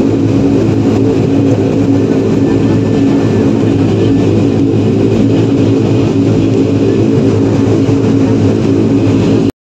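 Turboprop airliner's engines and propellers heard from inside the cabin, running at high power in a steady drone with a layered propeller hum as the plane rolls fast down the runway on its takeoff run. The sound cuts off abruptly near the end.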